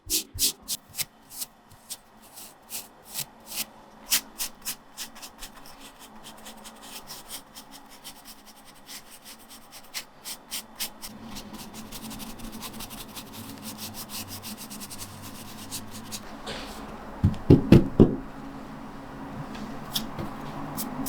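Hands handling and rubbing a carved linoleum block: quick sharp taps and clicks through the first half, then steadier rubbing, with a few heavier knocks near the end.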